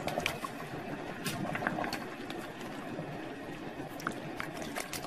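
Wire skimmer tipping blanched bamboo shoot strips into a basin of water: scattered small splashes and drips over a steady hiss.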